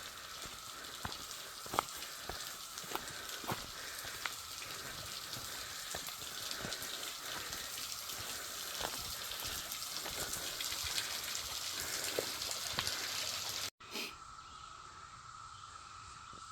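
Steady drone of a cicada chorus, one held pitch in the upper mid range, over a hiss like running water, with scattered light clicks in the first half. About fourteen seconds in the sound cuts and resumes quieter, the drone still there and the hiss mostly gone.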